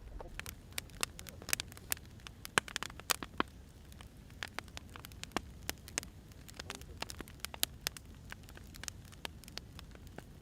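Wood fire crackling: irregular sharp pops and snaps of burning firewood over a low, steady rumble of flames.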